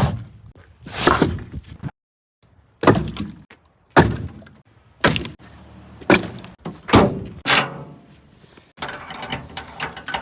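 Split firewood being tossed down, a sharp wooden thunk and clatter roughly once a second.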